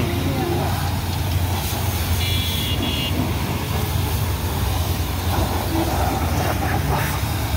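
High-pressure water spray from a pressure-washer wand striking a car's wheel and tyre, over a steady low hum. A short horn toot sounds about two seconds in.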